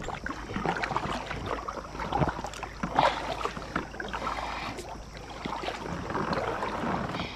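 Double-bladed kayak paddle stroking through calm water: the blades splash and drip in an irregular rhythm, with a few light knocks.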